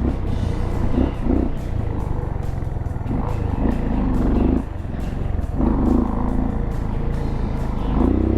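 Motorcycle engine running under load on a sandy trail, its revs rising and falling with the throttle, with a brief dip in level about halfway through.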